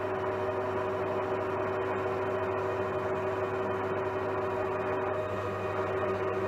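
Metal lathe running steadily while turning a workpiece, its motor and headstock gears giving a steady hum with a few fixed tones.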